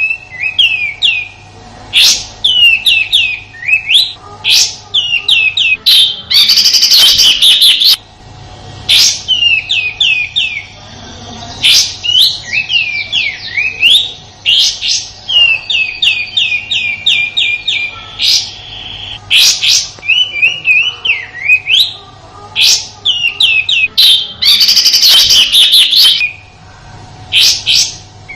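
Kapas tembak bulbul singing its rough "tembakan" song: quick strings of sharp, falling whistled notes in repeated phrases. Twice the notes run into a longer harsh, rasping burst.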